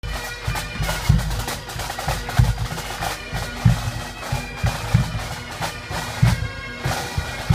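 Pipe band playing: bagpipes sound a steady drone under the chanter melody, and a bass drum beats a steady pulse with strong strokes a little over a second apart.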